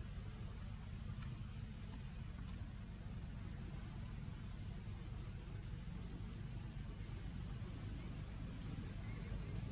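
Outdoor ambience: a steady low rumble, with short high bird chirps every second or so.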